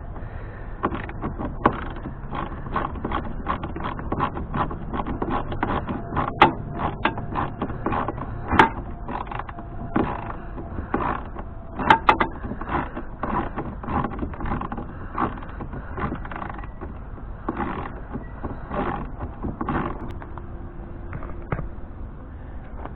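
Irregular clicks and knocks of a hand tool working on bolts, with metal and plastic parts being handled, several strikes a second in places.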